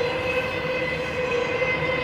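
Intermodal freight train cars rolling past: a steady rolling rumble of steel wheels on rail, with thin, steady, high-pitched wheel squeal running through it.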